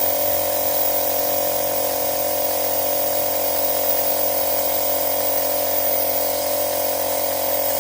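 A machine running steadily with a constant whine, unchanged throughout.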